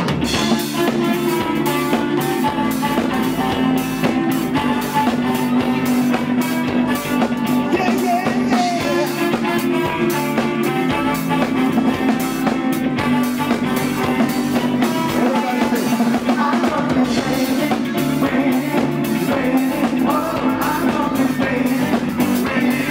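Live band playing amplified music: a steady drum-kit beat under electric guitars, bass and keyboards, with singers' voices at times.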